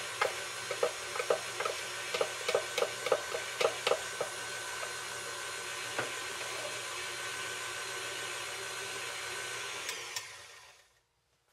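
Electric stand mixer running with a wire whisk beating cake batter, a steady motor whine with rapid ticking, about three to four a second, over the first four seconds or so. Near the end it is switched off and the motor winds down to silence.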